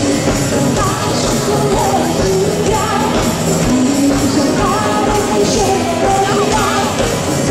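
Rock music with a steady beat, about two beats a second.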